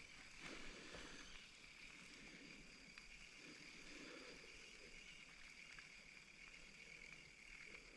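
Near silence: faint steady background hiss with a couple of soft ticks.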